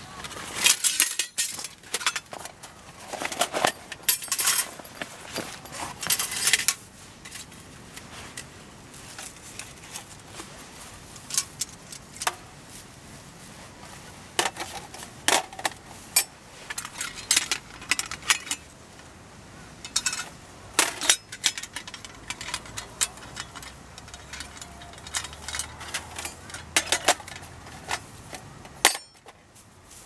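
Thin metal plates and wire legs of a mini folding fire stand clinking and scraping as it is taken from a cloth pouch and put together by hand, with irregular sharp clinks throughout.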